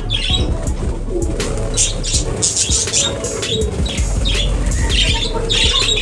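Budgerigars chirping and chattering in an aviary, with wings flapping, over a steady low hum.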